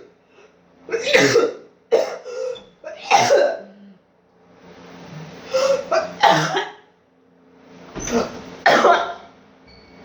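A person coughing from COVID-19, about eight coughs in three bouts.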